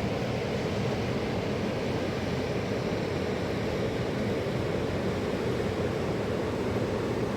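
Steady rushing of a mountain river, an even noise with no breaks.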